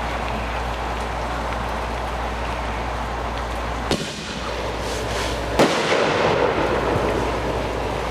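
Two firework bangs about a second and a half apart, the second louder and followed by a rushing tail lasting a second or two, over steady rain.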